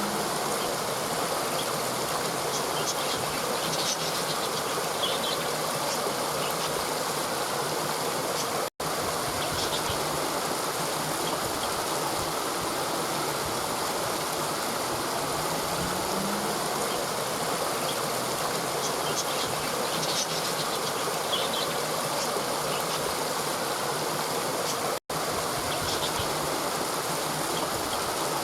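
River water flowing steadily over rocks, with faint bird chirps now and then. The sound cuts out for an instant twice.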